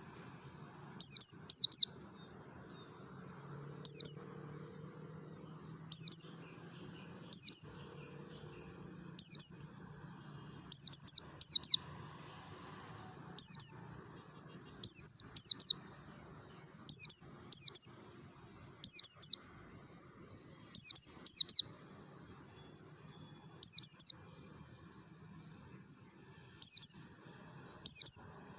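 A pleci (white-eye) giving its wild-style 'ngalas' call: short, high, thin notes that slur downward, singly or in quick pairs and threes, about every one to two seconds.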